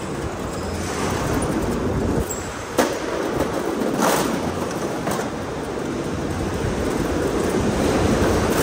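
Go-kart driving on an indoor concrete track: a steady running noise of the kart and its tyres, with a sharp knock just under three seconds in and another about a second later.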